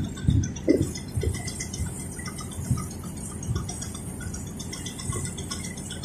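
Low rumble aboard a small excursion boat under way, with irregular knocks and rattling, several close together in the first second and a half, then scattered.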